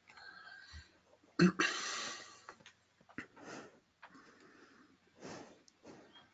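A loud breath close to a headset microphone about a second and a half in, with fainter breaths and soft clicks around it.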